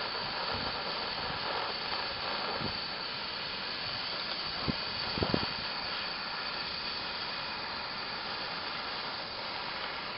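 Handheld gas torch flame hissing steadily while it heats a copper ring terminal on 2/0 cable for soldering. A few light knocks come about halfway through.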